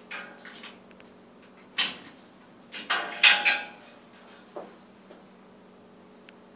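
A barred metal cell door being worked open: a few separate clanks and scrapes, the loudest a rattling creak about three seconds in, over a steady low hum.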